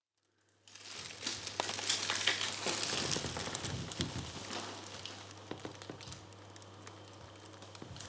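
Wrapper and backing of an adhesive bandage crinkling as they are peeled open and handled, with dense crackling that starts about a second in and eases off in the second half. A low steady hum runs underneath.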